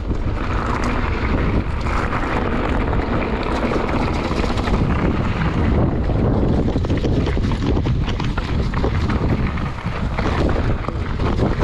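Wind buffeting the microphone over the rumble of mountain-bike tyres on a rocky gravel trail, with many quick clicks and rattles as the bike clatters over stones and roots.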